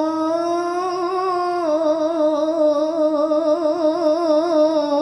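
A boy's voice in melodic Quran recitation (tilawah), holding one long drawn-out note on the final word 'at-Tawrāh'. The pitch rises slightly, drops a step about two seconds in, and then wavers rapidly in an ornamented trill.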